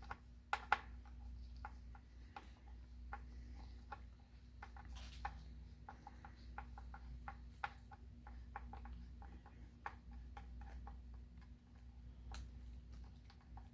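Faint, irregular small clicks and scrapes of a screwdriver slowly turning a screw out of a car door speaker's mounting bracket, over a low steady hum.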